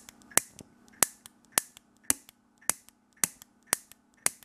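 A homemade shell-casing fireball pistol firing over and over. Its piezo lighter igniter gives about eight sharp snaps, roughly two a second, each followed by a fainter tick, as small puffs of fuel vapour pop alight.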